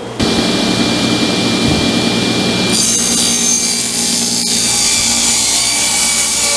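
Table saw switching on and running with a steady motor hum, then from about three seconds in its blade cutting through a sheet of 3/4-inch plywood, adding a higher, rougher cutting noise.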